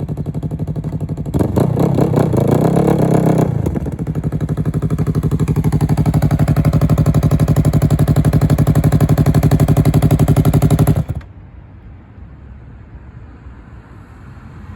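Motorcycle engine running close by. It revs up about a second and a half in and eases back about two seconds later, then runs steadily for several seconds before cutting off abruptly.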